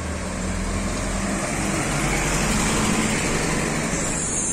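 A bus driving past close by, its engine running and growing louder over the first couple of seconds as it draws near, then holding steady as it passes alongside.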